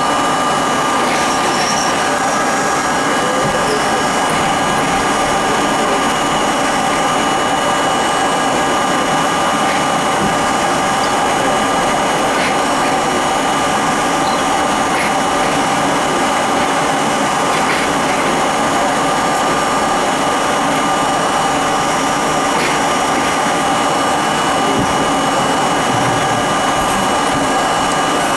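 R32 subway car running at steady speed, heard from inside the front car: a loud, continuous rumble of wheels on rail with a steady motor whine held on a few constant pitches, and occasional faint clicks.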